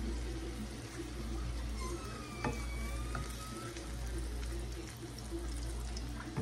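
Breakfast sausages sizzling in oil in a frying pan, with the small clicks and scrapes of a plastic spatula turning and lifting them and one sharper tap about two and a half seconds in.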